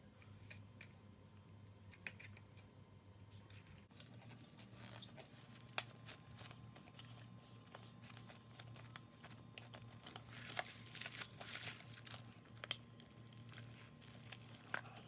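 Faint handling of a plastic Play-Doh tool set and dough: scattered light clicks and taps, with a stretch of rustling about ten seconds in, over a steady low hum.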